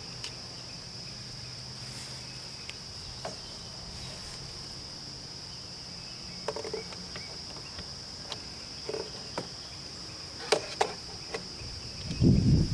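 Steady high-pitched chorus of insects, crickets, with scattered light clicks and knocks throughout. A brief loud low rumble comes near the end.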